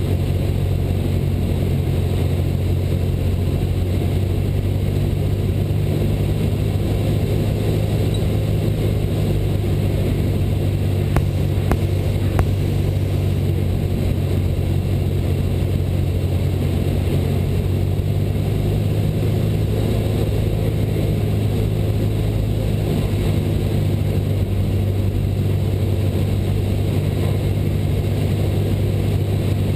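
A Cessna 172 Skyhawk's engine and propeller drone steadily, heard inside the cabin. There are two brief clicks about eleven and twelve seconds in.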